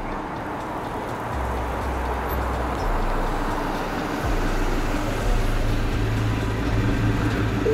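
Instrumental tail of a reggaeton/trap track: deep sustained bass notes that step to a new pitch every second or so, under a steady rushing noise, with no vocals.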